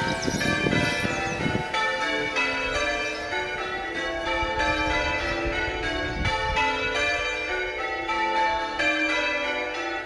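Church bells ringing changes: a quick, even run of bell strikes at several different pitches, about three or four a second, each note ringing on under the next.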